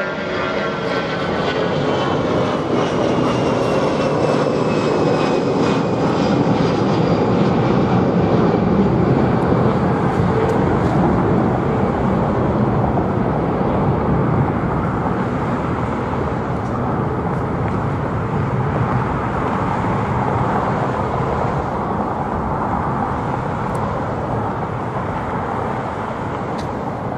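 Airbus A320-family twin-engine jet climbing out after takeoff: a loud jet roar with whining engine tones that fall in pitch over the first several seconds as it passes, then the roar slowly fades as it flies away.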